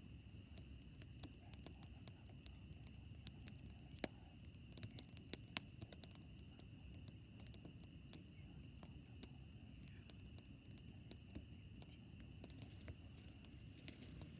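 Campfire crackling faintly: scattered sharp pops and ticks, the loudest about four and five and a half seconds in, over a low rumble.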